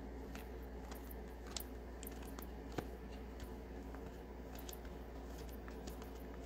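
Faint clicks and rustles of plastic-sleeved trading cards being handled and shuffled through, over a steady low hum, with one slightly sharper click about three seconds in.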